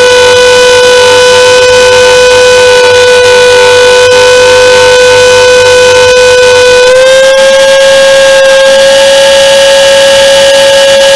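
Align T-Rex 450 electric RC helicopter heard from on board: a loud, steady high-pitched whine from its motor and rotor drive. The pitch steps up slightly about seven seconds in.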